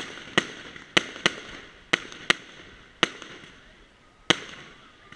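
Aerial fireworks bursting overhead in quick succession: about eight sharp bangs, several in close pairs, each dying away quickly. The last comes about four seconds in.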